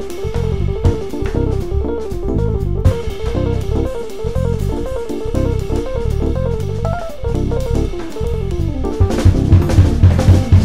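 Background rock-style music with drum kit and guitar playing a repeating riff over a steady beat, building to a run of louder drum hits near the end.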